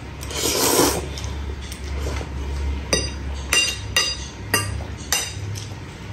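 A short slurp of spaghetti noodles, then a metal knife and fork clinking and scraping against the bowl: several sharp clinks with a brief ring in the second half.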